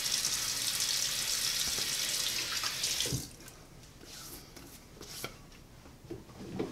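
Bathroom sink tap running, shut off suddenly about three seconds in, followed by a few soft splashes and rubs of wet hands on a face.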